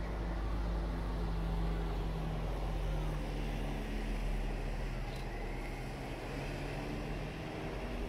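A steady low engine hum, holding one pitch with a few even tones.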